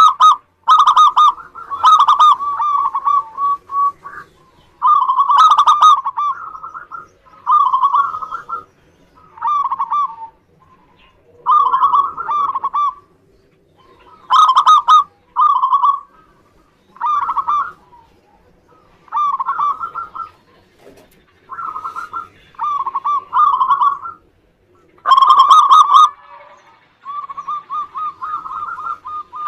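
Zebra dove (perkutut) cooing: about a dozen rapid, pulsing coo phrases, each lasting about a second and separated by short pauses, some of them louder than others.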